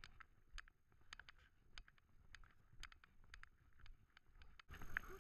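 A walking dog's claws clicking faintly and irregularly on stone paving, a few sharp clicks a second, over near silence. Near the end, louder outdoor background noise cuts in abruptly.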